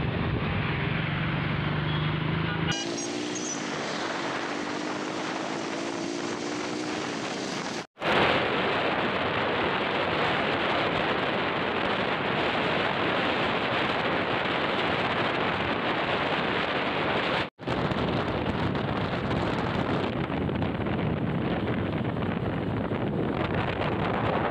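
Wind rushing over the microphone of a moving motorcycle, with the bike's engine under it, its pitch rising as it speeds up a few seconds in. The sound cuts out briefly twice.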